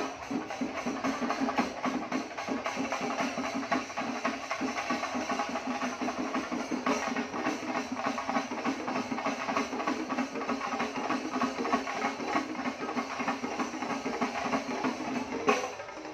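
A festival percussion ensemble drumming loudly in fast, dense, continuous strokes. It drops away abruptly just before the end.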